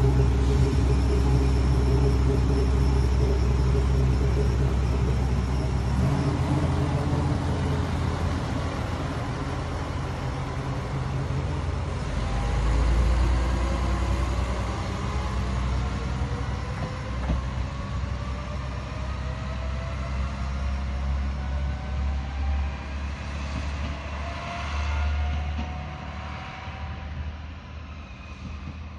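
Tarumi Railway Hi-mo diesel railcar pulling away from the station. Its engine is loud at first, then rising whines build as it gathers speed and fades into the distance.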